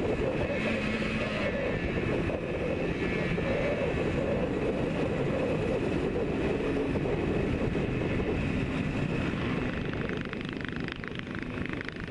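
Yamaha RD400 two-stroke twin running under way at a steady cruise, its exhaust mixed with wind rush on a helmet chin-mounted camera. It drops slightly in level about ten seconds in.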